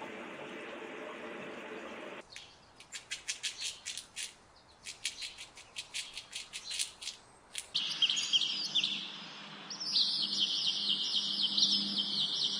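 About two seconds of steady rushing noise, then a run of sharp, quick, high chirps or clicks, then from about eight seconds in a dense, unbroken chorus of high bird chirping.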